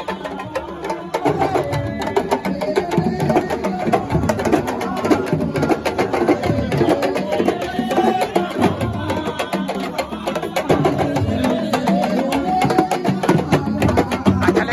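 Live Senegalese drumming: a group of sabar drums struck with sticks and bare hands in a fast, dense rhythm, with voices over the drums.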